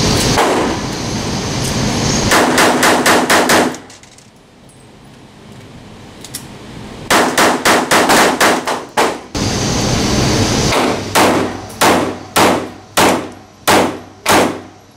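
Pistol shots echoing in an indoor range: two fast strings of about seven or eight shots each from a Ruger LCP .380 compact pistol, then a steadier run of shots about two a second near the end from a Ruger LC9 9mm pistol.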